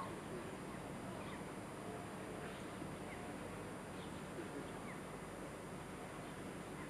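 Faint scattered bird chirps over a steady hiss of outdoor background noise, with a single click at the very start.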